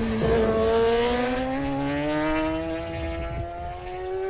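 Racing motorcycle engine at high revs, accelerating. Its pitch dips briefly near the start, then climbs steadily, and the sound cuts off suddenly at the end.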